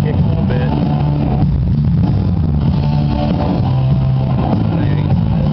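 Rock band playing live through the PA, led by electric guitar over bass: a loud, continuous instrumental passage during a sound check.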